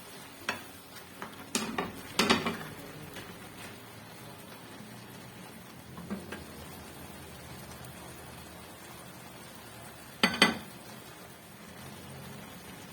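Food frying in a pan with a steady sizzle, while a utensil stirs it and knocks against the pan: a few sharp clinks about two seconds in, one about six seconds in and a louder pair about ten seconds in.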